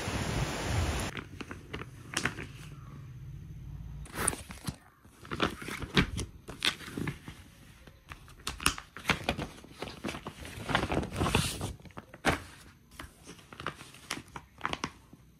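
Hands handling a plastic document folder and sheets of paper: an irregular run of crinkles, rustles and light taps. Before this, for about a second, steady rain noise is heard; it cuts off abruptly.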